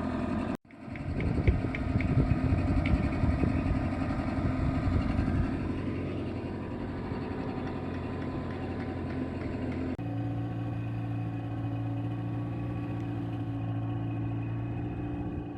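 A small sailboat's engine running steadily under way. The note changes abruptly about ten seconds in to a different steady drone.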